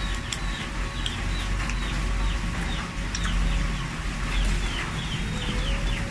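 Birds cheeping in a run of short, falling calls several times a second over a steady low rumble, with a few sharp clicks of a metal spoon against cockle shells.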